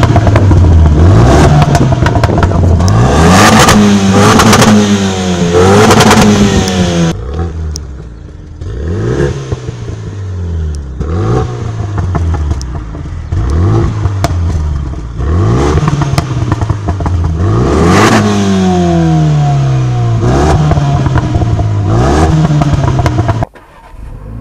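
Renault Mégane RS 275 Trophy's turbocharged four-cylinder, through its Akrapovic exhaust in RS mode, revved hard over and over while standing still. There are longer, higher pulls in the first seven seconds, then short blips about every one and a half seconds, with sharp cracks among them. The sound cuts off suddenly near the end.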